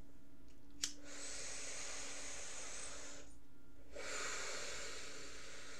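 A sharp click, then two long, hissing sniffs through the nose, each two to three seconds, with a short pause between, as a small bottle is held to the nose.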